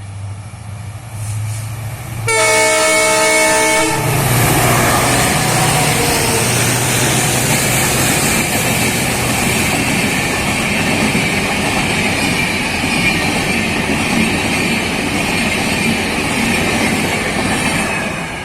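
A passenger train's horn sounds once, lasting about a second and a half, over a low engine hum. Then the train rushes past with loud, steady wheel and rail noise that eases off near the end.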